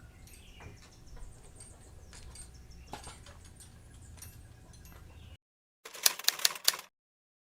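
Faint outdoor background with light clicks and thin bird chirps, cutting off suddenly about five seconds in. A second later comes a brief burst of loud, rapid clicking or rattling, lasting about a second.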